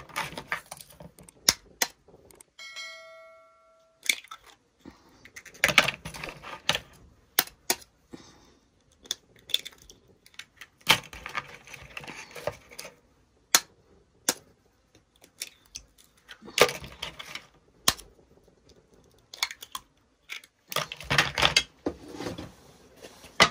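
Raw eggs being cracked one after another against a plastic container, with sharp cracks, shells clicking onto a plate and small knocks of handling at irregular intervals.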